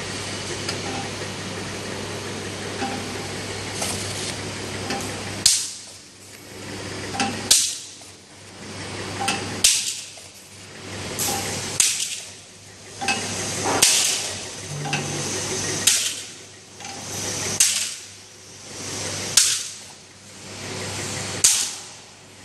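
Automatic flat-surface labeling machine running: a steady mechanical hum with a sharp clack about every two seconds, starting about five seconds in, as the machine cycles.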